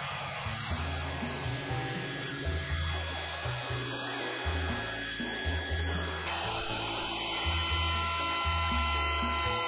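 Background music with a changing bass line over the steady whine of power tools: a Festool Rotex random-orbit sander, then a Festool plunge router whose high, steady whine comes in about six seconds in.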